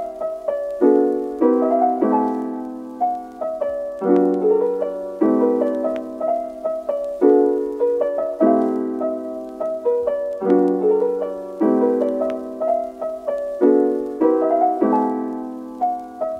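Background piano music: a slow piece of chords struck about once a second and left to ring.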